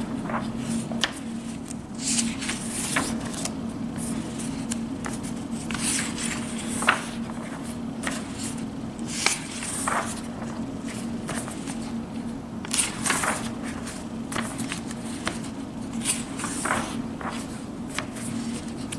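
Paper pages of a large softcover coloring book being turned by hand, swishing and rustling every second or two, over a steady low hum.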